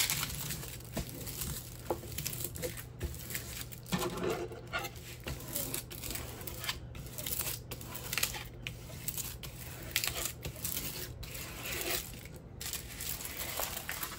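Crinkling and rustling of the thin protective plastic film on a diamond-painting canvas as it is smoothed flat with a spatula, with irregular small crackles throughout.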